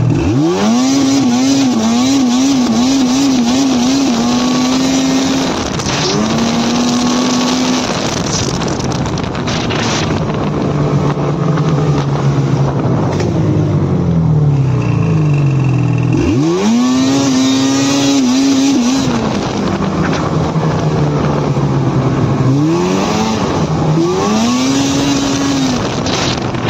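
Ski-Doo E-TEC 800 two-stroke twin snowmobile engine opened hard to full throttle four times, its pitch leaping up, holding and falling back between runs. On the first run the engine speed wavers up and down a couple of times a second instead of pulling cleanly: the misfire-like 'sneeze' (puff-puff-puff) it shows only under heavy load at sharply opened throttle.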